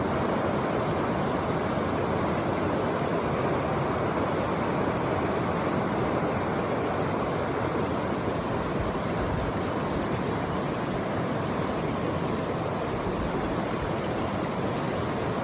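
River water rushing and babbling, a steady even noise.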